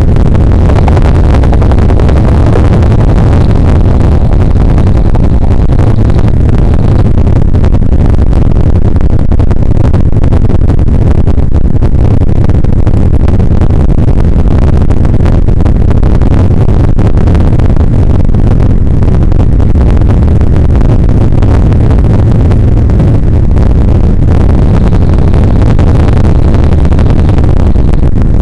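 Bell UH-1 Huey helicopter in flight, heard from inside the cockpit: loud, steady rotor and turbine engine noise.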